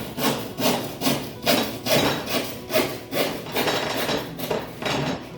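Handsaw cutting through an OSB panel in steady back-and-forth strokes, about two a second.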